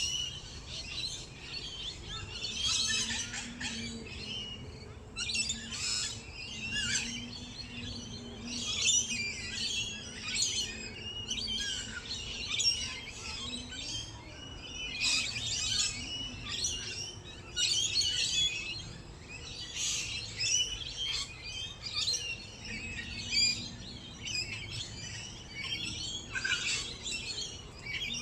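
Several songbirds chirping and singing, with many short calls and trills overlapping throughout, over a faint low hum.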